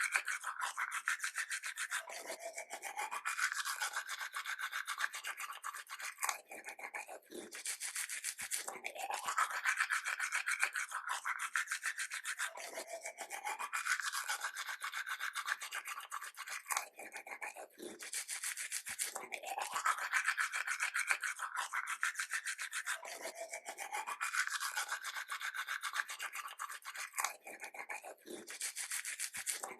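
Teeth being brushed with a toothbrush: rapid back-and-forth scrubbing strokes, with a brief pause about every ten seconds.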